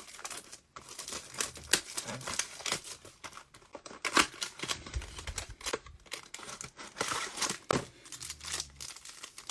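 Trading-card pack wrappers and box packaging crinkling and tearing as they are handled and ripped open, an irregular run of crackles and rustles.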